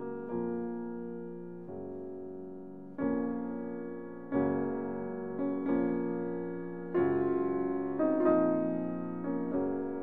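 Slow piano music: chords struck every second or so and left to ring and fade.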